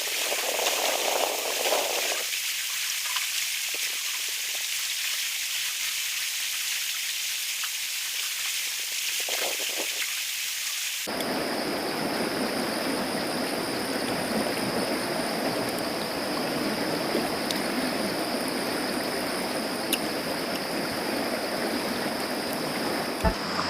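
Steady patter of rain, with a high, even hiss. About eleven seconds in it changes abruptly to the fuller, steady rush of a river in spate, with a thin steady high tone over it.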